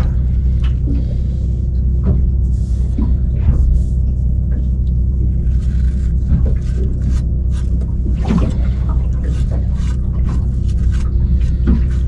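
Boat engine running steadily, a low even hum, with a few short handling clicks and scrapes over it.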